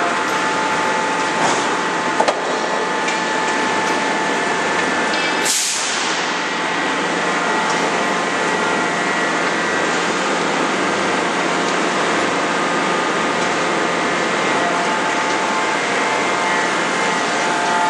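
Closed-die forging press running in a forge shop: a steady mechanical drone with a few held whining tones. A sharp clank comes about two seconds in, and a short hiss about five and a half seconds in.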